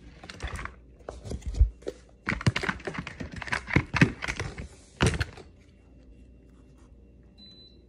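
A deck of tarot cards being shuffled by hand: a quick, uneven run of card clicks and slaps that stops about five seconds in.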